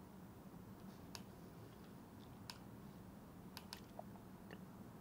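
Near silence broken by several faint computer mouse clicks, spaced irregularly, as layer buttons are toggled on a map display.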